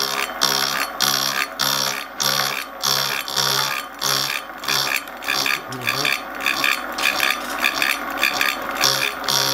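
Milling machine's disc cutter taking a slotting cut through a metal block in one pass, the cutting noise pulsing regularly about twice a second.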